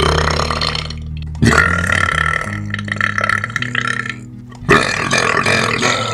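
A man belching three long, loud burps in a row: one right at the start, one about a second and a half in, and one near five seconds in.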